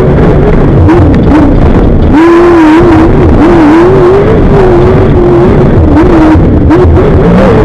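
Off-road race vehicle's engine at speed, its revs swinging up and down as the throttle is worked through a fast lap. The revs drop sharply about two seconds in and then pick up again. Short knocks and rattles run through it, and the recording is very loud.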